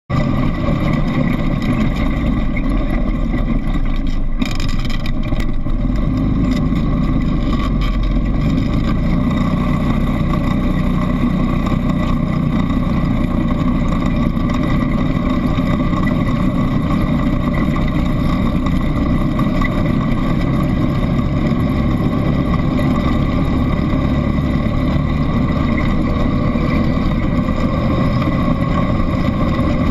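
ATV engine running steadily while riding along a dirt track, with a few knocks about four to five seconds in.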